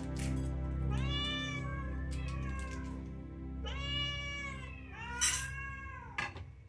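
Domestic cats meowing: four drawn-out meows, the one about four seconds in the longest, over background music.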